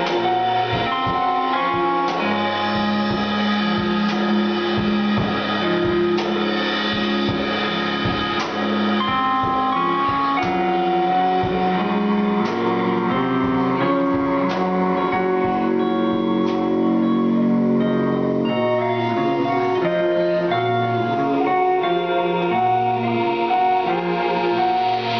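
Live instrumental music from guitar and drum kit, with many held notes layered over one another. The drum hits are steady for most of it and thin out near the end.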